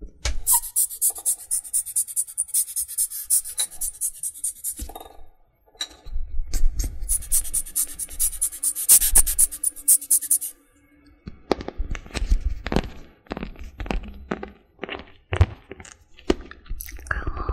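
Close-miked ASMR trigger sounds: rapid, even scratching strokes in two long runs, then scattered taps and soft thuds in the later part.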